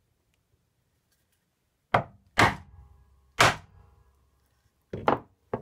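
A chisel struck three sharp blows into a small wooden block, splitting it along the grain to free the threaded insert nuts set in it, with a brief metallic ring after the blows. A few lighter knocks follow near the end.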